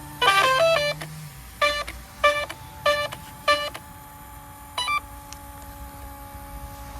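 Electronic speed control of an Arrma Mojave 4S RC car sounding its power-on tones through the motor. A quick run of stepped musical tones comes first, then four evenly spaced beeps and a short double beep near the end, the ESC's startup and arming sequence.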